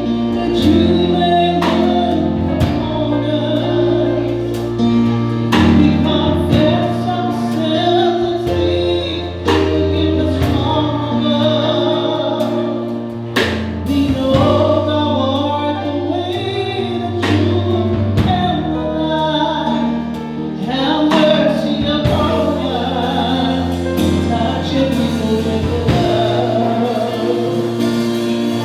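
A congregation or choir singing a gospel hymn to instrumental accompaniment, with a steady bass line and a regular beat.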